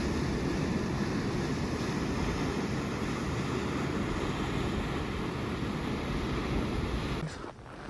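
Steady rushing of river water running through a snowy rock canyon. It cuts off suddenly near the end.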